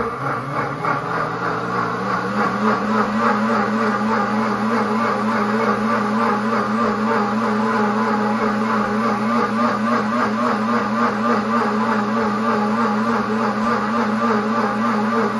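Pampered Chef Deluxe Cooking Blender's motor running at speed, churning hot soapy water in its heated self-clean cycle. Its pitch climbs over the first two seconds and then it holds a steady whir.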